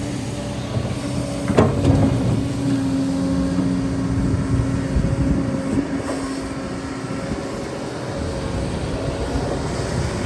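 Excavator's diesel engine running steadily under load, with a sharp metallic clank about a second and a half in and lighter knocks a few seconds later.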